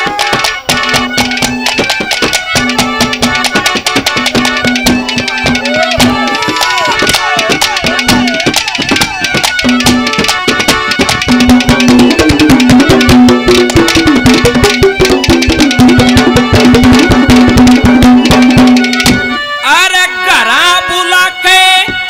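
Haryanvi ragni folk music played live: fast, dense hand-drum rhythm under a sustained melodic line that slides up and down. Near the end a man's voice comes in over the music at the microphone.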